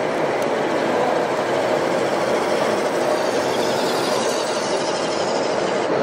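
Steady, even din of a busy indoor hall, with no single sound standing out.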